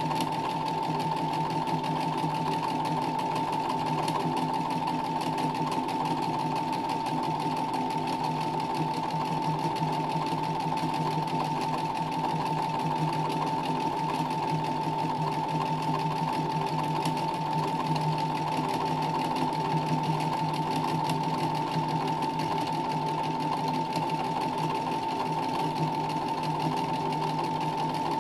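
Sewing machine running steadily at speed during free-motion embroidery, the needle stitching fast through hooped fabric: a steady whine with rapid, even needle strokes and no pauses.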